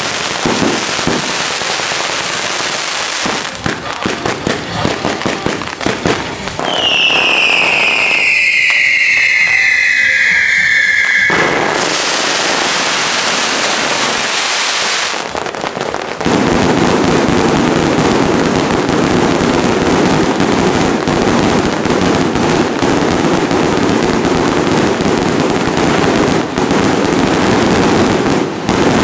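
Daytime fireworks and firecrackers going off in a dense, rapid crackle. About seven seconds in, a long whistle falls in pitch for several seconds. A loud hiss follows, then the firecrackers rattle on without a break.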